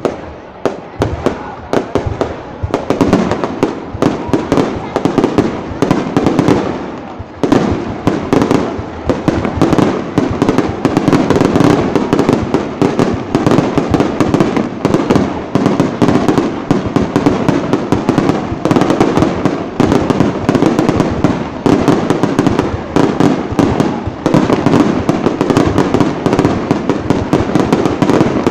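Fireworks display: rapid, overlapping bangs of bursting shells with no break, thinner for the first couple of seconds and then dense and continuous.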